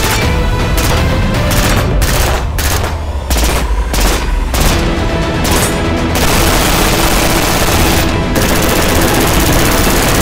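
Rapid, sustained fire from a PSA Freedom AR-15, shots following close on one another during a high-round-count burndown, with music playing over it.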